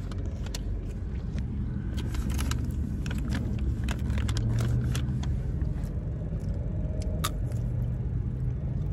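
Low, steady rumble of a car heard from inside the cabin, with scattered small clicks and rustles of a snack box being handled close by.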